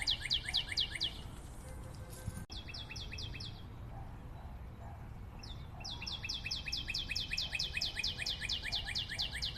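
A bird-like trill of quick, high, falling chirps, about eight a second, coming in three runs: briefly at the start, again about two and a half seconds in, and steadily through the last four seconds.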